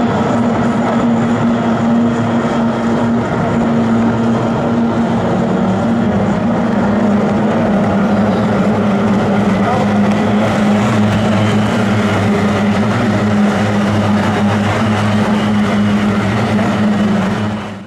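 Racing boats' two-stroke outboard engines running flat out in a steady, loud buzzing drone, its pitch shifting slightly as the boat turns. It cuts off suddenly near the end.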